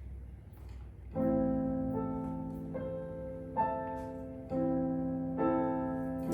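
Instrumental introduction to a folk song: sustained chords struck about once a second and left to ring and fade, starting about a second in after faint room tone.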